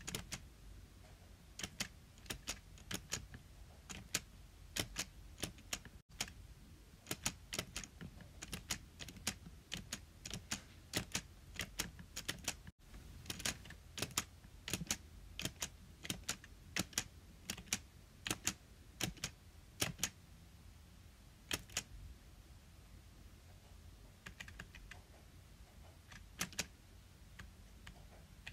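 Close-up sharp clicks in irregular quick runs of two to four, separated by short pauses, thinning out near the end.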